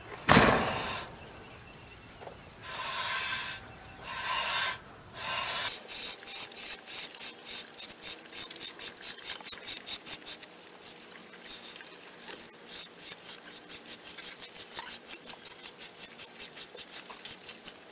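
Goat's milk squirting into a pot under one-handed hand milking: a few longer hissing streams at first, then a steady rhythm of short squirts, about three to four a second.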